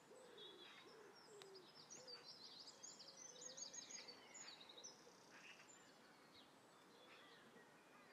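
Faint birdsong: a pigeon cooing in low, repeated curved notes at the start and again about three seconds in, with quick high chirps of small birds in between.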